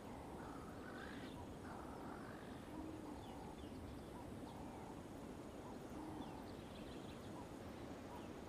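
Faint open-country ambience: birds chirping and whistling here and there, short scattered calls over a low steady background hiss.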